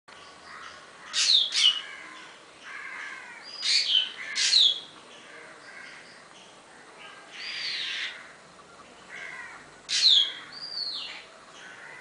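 Black drongo calling: loud, sharp high notes that drop steeply in pitch, mostly in pairs, repeated four times with a rougher arched note among them, and softer chatter between.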